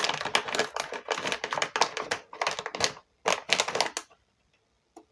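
Rapid crackling and clicking of plastic packaging and small parts being handled, in dense runs that stop about four seconds in.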